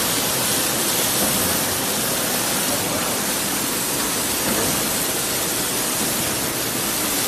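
Water jets spraying from the nozzle bars of a pineapple washing machine onto the pineapples on its rollers: a steady hiss of spray and splashing water.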